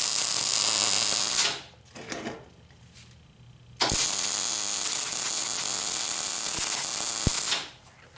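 MIG welder tack welding a nut onto a steel vise part. The arc burns for about the first second and a half, sputters briefly near two seconds, then burns again for about four seconds from near four seconds in.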